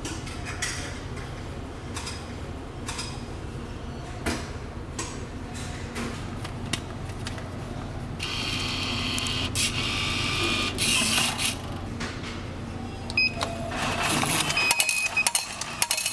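Meal-ticket vending machine taking in a banknote, its feed mechanism running briefly about eight seconds in. Near the end come short beeps and the mechanical clatter of the ticket being printed and dropped into the ticket outlet.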